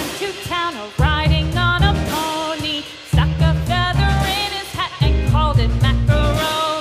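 Upbeat background music: a bright melody over a pulsing bass line and beat, with a new phrase starting about every two seconds.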